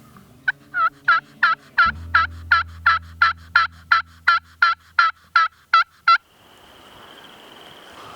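Turkey yelping: a long run of about seventeen evenly spaced, loud yelps, about three a second, that stops about six seconds in.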